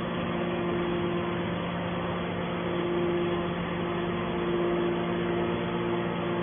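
Scrap metal wire baler running: a steady machine hum with a low held tone, and a higher tone that fades in and out several times.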